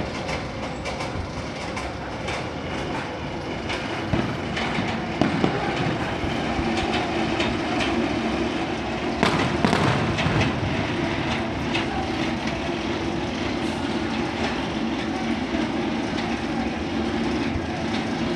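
Goliath roller coaster train rumbling and clattering along its track, with a steady hum that grows stronger partway through. A few sharp firework bangs cut through, the strongest just after nine seconds in.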